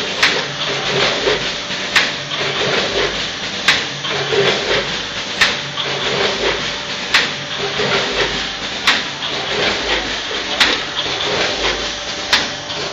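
Multihead weigher running on small MSG granules. Its weigh-hopper gates snap open with a sharp clack about every second and three quarters, over a continuous hiss of granules pouring and a low pulsing hum from the vibrating feed pans.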